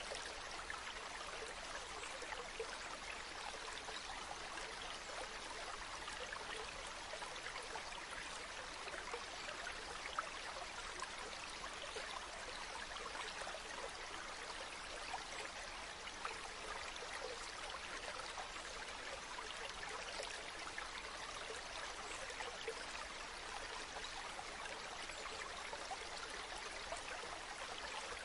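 River stream flowing steadily over rocks, a constant rushing burble with small splashes and trickles.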